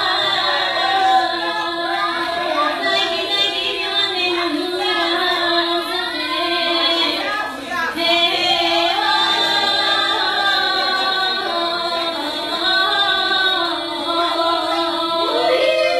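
Women's voices singing a Bulgarian folk song together, with a steady low note held underneath.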